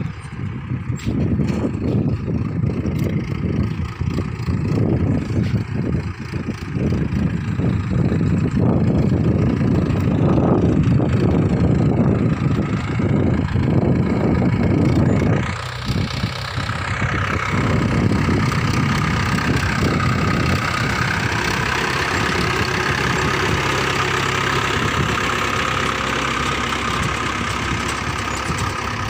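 Mahindra 475 DI tractor's four-cylinder diesel engine running steadily while it pulls a tined seed drill through the soil. There is a short drop about halfway, after which the engine note is steadier and brighter.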